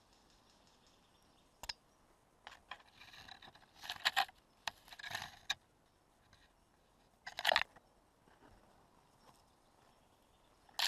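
Irregular crunching and rustling, like footsteps and gear moving over dry ground, with a sharp click about a second and a half in and louder crunches around four, five and seven and a half seconds in.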